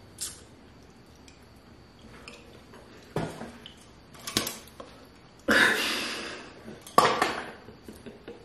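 Scattered knocks and clinks of small objects being handled, with two louder rushing bursts about five and a half and seven seconds in, each fading over about a second.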